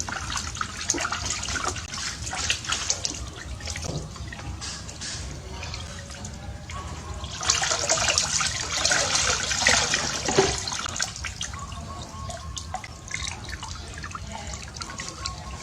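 Water splashing and sloshing in a bathtub as a small monkey swims and plays in it. The splashing is irregular and grows heavier for a few seconds in the middle.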